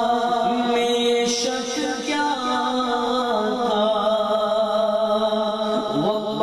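A man singing a naat (Urdu devotional hymn) into a microphone, drawing out long held notes that glide slowly from pitch to pitch.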